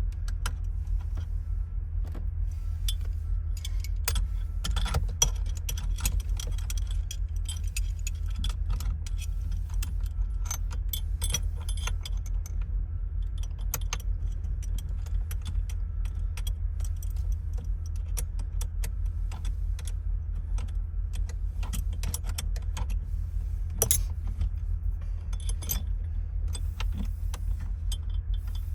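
Keys jangling and small metal parts clicking in irregular, scattered clicks, over a steady low hum, as the ignition and steering column are worked on.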